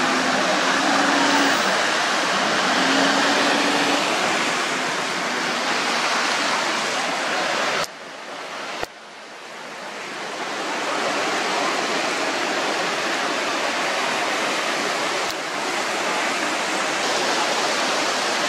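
Steady rush of floodwater flowing. It drops away suddenly about eight seconds in and builds back up over the next two seconds.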